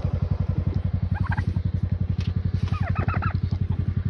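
Poultry in the coop calling in short, quick bursts several times over a loud, steady low throb from an idling engine or motor, pulsing about a dozen times a second.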